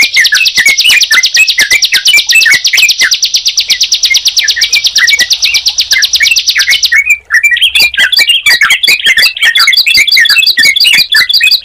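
Ciblek (bar-winged prinia) and trucukan (yellow-vented bulbul) singing together: a loud, rapid run of repeated high notes with lower chirps mixed in. About seven seconds in it breaks off briefly and resumes as a different, lower-pitched trill.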